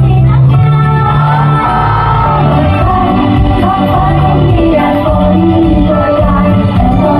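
Female pop idol group singing into microphones over loud amplified pop accompaniment with a strong bass, with shouts from the audience mixed in.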